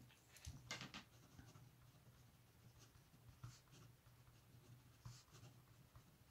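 Ballpoint pen writing on paper: faint, short scratching strokes, with a slightly louder scrape a little under a second in.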